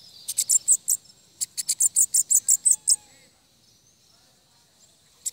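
Caged bananaquit (sibito) singing: rapid runs of high, sharp notes, first a short burst, then a longer string of about a dozen notes at roughly eight a second. Another run starts just at the end.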